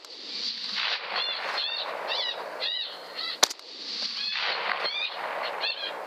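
A wounded coyote yelping over and over in short, high, arching yips, with a single rifle shot about three and a half seconds in as a follow-up to finish it.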